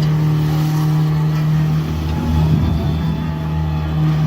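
A motor vehicle's engine running at a steady pitch.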